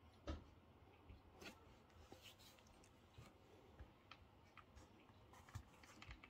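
Near silence: room tone with a few faint clicks and taps of handling, the sharpest about a third of a second in.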